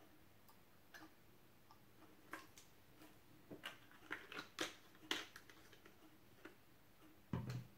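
Faint clicks and ticks of a plastic screw cap being fitted and twisted onto a plastic bottle, bunched a few seconds in, then a duller knock near the end as the bottle is set down on the table.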